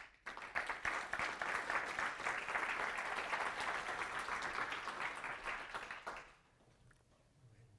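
Audience applauding: a dense patter of many hands clapping that dies away about six seconds in, leaving quiet room tone.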